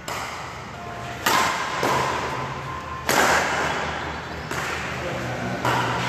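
Badminton rackets striking a shuttlecock in a rally: four sharp hits one to two seconds apart, each trailing off in the hall's echo.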